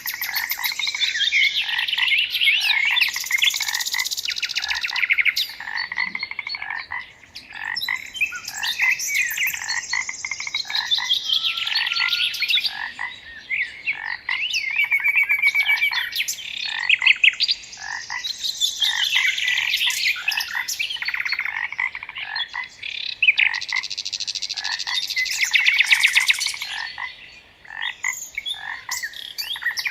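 A chorus of frogs croaking and songbirds singing, in loud pulsed phrases several seconds long broken by short lulls.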